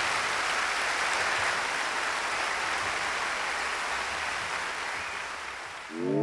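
Audience applause, steady and then fading away over the last second or so. An electronic music track starts right at the end.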